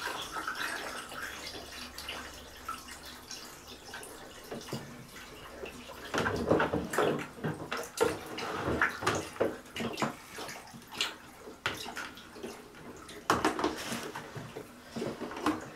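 Water sloshing and lapping around a floating hard-plastic camcorder housing in a tub, with irregular splashes from about six seconds in.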